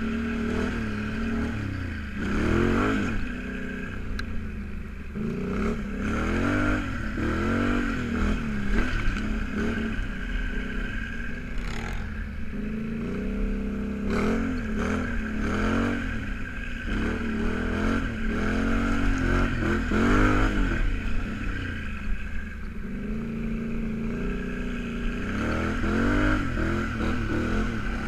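ATV engine revving up and falling back again and again as the quad is ridden over rough dirt, heard from the rider's helmet.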